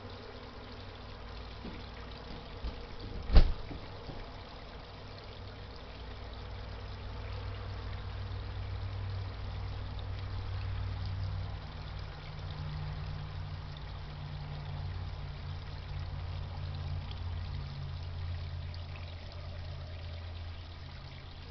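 Water from a garden pond pump trickling and splashing steadily, with a low rumble that swells through the middle and fades near the end. A single sharp knock about three seconds in is the loudest sound.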